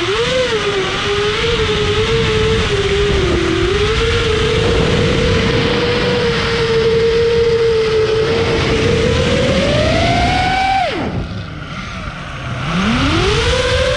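FPV quadcopter motors whining under throttle. The pitch wavers at a fairly steady level, climbs about ten seconds in, drops sharply as the throttle is cut, then rises again as it is punched back up.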